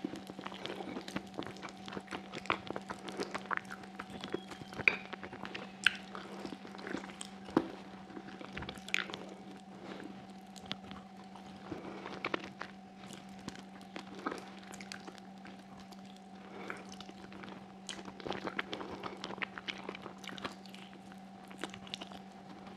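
Close-miked eating of sheep's trotters: wet chewing and lip smacking, with sharp clicks as the gelatinous meat is pulled apart by hand and bitten. A steady faint hum runs beneath.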